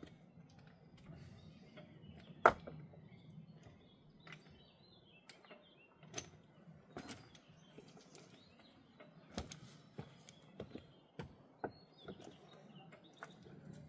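Irregular sharp knocks of stone on stone as rocks are picked from a pile and set into a dry stone wall. The loudest knock comes about two and a half seconds in, and a run of them comes near the end.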